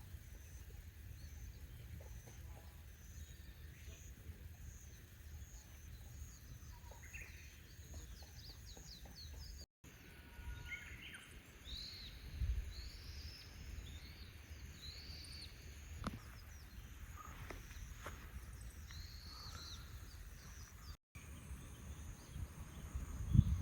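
Wild birds calling outdoors over a low steady background rumble: first a quick run of high, evenly repeated chirps, then after a brief break several separate arching whistled calls. The sound cuts out twice for an instant.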